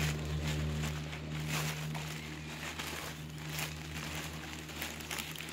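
Newspaper packing crinkling and rustling in repeated crackly bursts as gloved hands unwrap it from a potted cactus, over a steady low hum.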